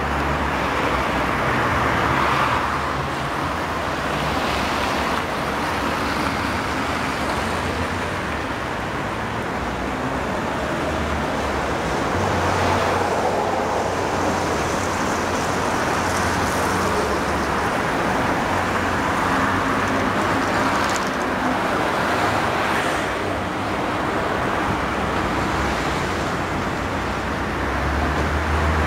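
Steady city street traffic: cars driving past on a wet road, their tyre hiss and engine rumble swelling and fading as each one passes.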